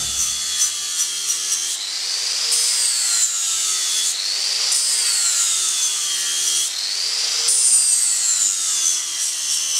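Angle grinder grinding metal: a steady abrasive hiss under a high motor whine that rises and falls every two to three seconds.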